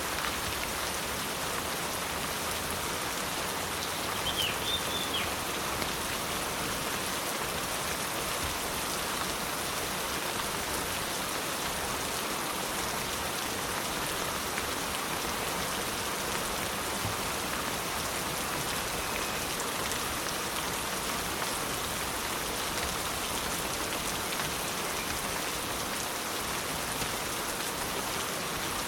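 Steady rain falling, a dense even patter of drops. A brief high chirp sounds about four seconds in.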